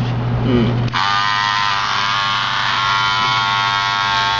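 A low hum gives way, about a second in, to the small vibration motor of a soda-can robot toy starting up and buzzing steadily, shaking the can-bodied robot.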